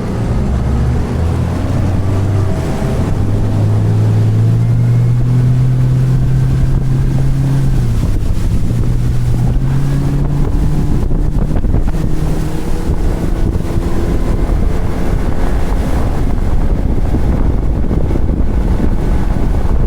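A fishing boat's outboard motor running under way at speed, rising in pitch over the first few seconds and then holding steady. Heavy wind buffets the microphone throughout.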